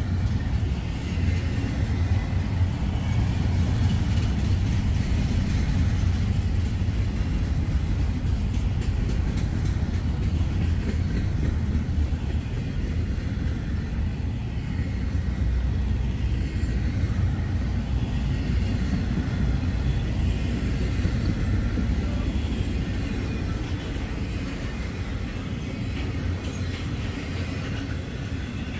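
Norfolk Southern intermodal freight train rolling slowly past: a steady low rumble of wheels on rail with faint high ringing tones above it, easing off slightly near the end.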